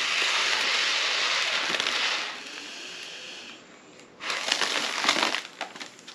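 Breath blown hard through a straw into a foil letter balloon: a long rushing blow of about two seconds, then a fainter flow of air. About four seconds in comes a second blow mixed with crinkling of the foil, then scattered crinkles as the balloon is handled.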